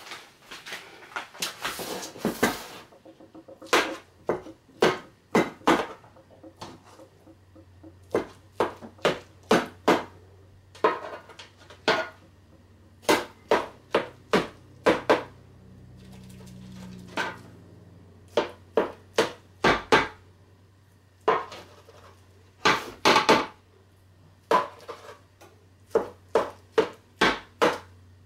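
A knife blade knocking and scraping against the bottom of a speckled enamel roasting pan as it slices through raw meatloaf mixture: a long run of sharp clicks, one or two a second, in irregular bursts.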